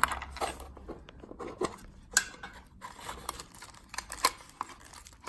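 Irregular small metal clicks and short scrapes from an American Lock 1100 padlock and a shim being worked into its cylinder while it is taken apart, with three sharper clicks near the start, about two seconds in and about four seconds in.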